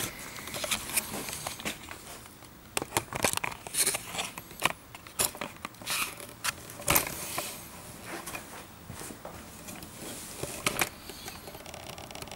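Handling noise from the camera being picked up and repositioned: rustling and crinkling with many irregular sharp clicks and knocks.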